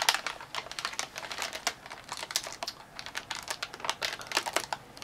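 Plastic Oreo cookie packaging crinkling and crackling as it is handled, a dense run of irregular sharp crackles and clicks.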